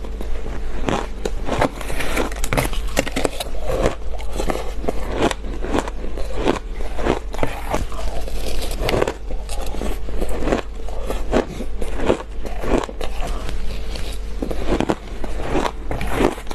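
Close-up crunching of ice being bitten: a quick run of sharp, crackling cracks, several a second, as hard ice breaks between the teeth.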